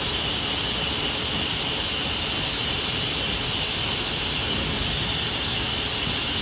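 Hair dryer blowing steadily: a loud, even rush of air with a strong hiss.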